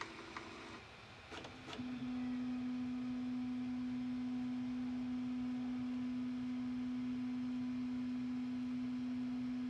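Bambu Lab A1 Mini 3D printer: a couple of light clicks about a second and a half in, then a steady, even low tone that holds at one pitch, the machine's motors humming as the print finishes.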